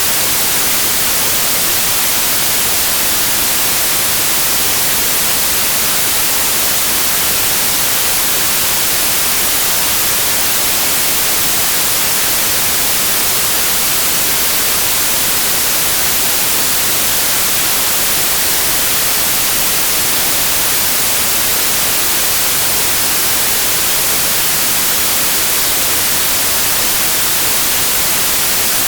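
Steady, loud generated white noise, an even hiss with no breaks or changes, played as a tinnitus masking sound.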